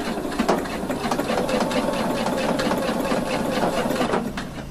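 Electronic domestic sewing machine stitching a short seam, a rapid, even run of needle strokes over the motor's hum that stops near the end.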